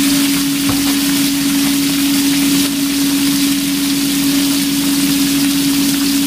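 Green beans sizzling in an oiled skillet, a steady hiss, under a loud, steady machine hum of one pitch.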